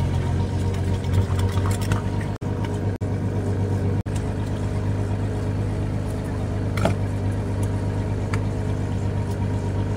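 A fishing boat's engine running steadily with a low, even hum. The sound drops out for an instant about two and a half, three and four seconds in, and there are a few faint clicks over it.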